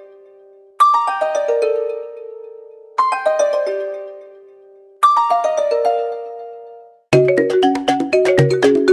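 Xiaomi Mi1 phone tones: a short falling run of chime-like notes plays three times, about two seconds apart, each ringing out. About seven seconds in, a different and faster mallet-like ringtone melody with a bass line starts.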